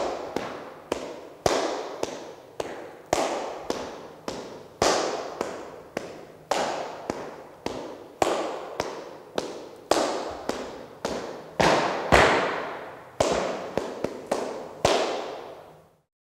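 Handclaps (palmas) keeping a steady three-beat sevillanas rhythm, about two claps a second with every third one stronger, each ringing briefly in the room. The clapping stops abruptly near the end.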